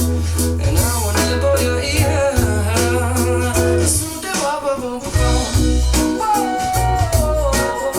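A pop song with guitar, bass and singing, played back through a pair of Dali Zensor 1 AX wireless speakers.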